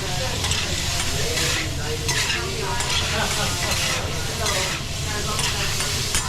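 Food sizzling on a teppanyaki flat-top griddle while a metal spatula repeatedly scrapes and stirs across the hot plate.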